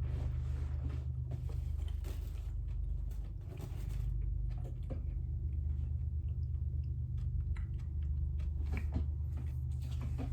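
A person chewing food close to the microphone, with scattered wet mouth clicks and smacks. A steady low hum runs underneath.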